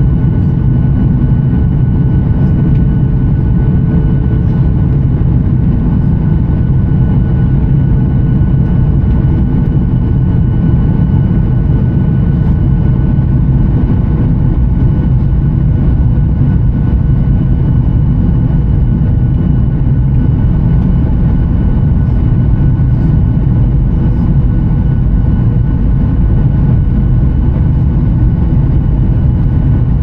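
Steady engine and airflow drone of a Boeing 737-900ER with CFM56-7B engines, heard from inside the cabin: a deep, even rumble with a few thin, steady whining tones over it.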